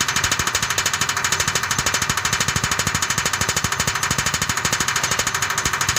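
Herb crushing machine running steadily while grinding lemongrass through a 2.5 mm sieve, with a fast, even pulsing beat.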